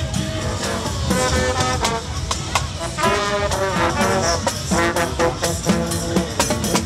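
Marching brass band playing while passing close by: trumpets and sousaphones carry the tune over a steady beat of marching drums.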